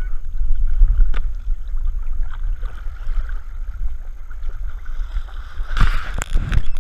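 Lake water sloshing and splashing around a camera strapped to a Bernese mountain dog's back as she swims and wades, with a steady low rumble. About six seconds in there are a few louder, sharper splashes.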